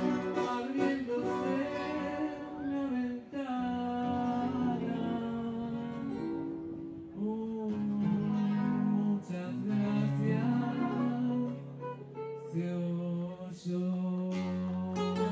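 An ensemble of classical (nylon-string) guitars playing a waltz live, a plucked melody over strummed and picked chords.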